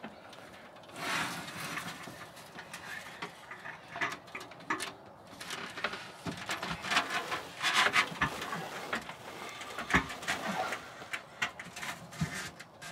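Handling and rummaging noises in a wooden boat cupboard: irregular rustles, scrapes and sharp knocks as things are moved about, with the loudest knock about ten seconds in.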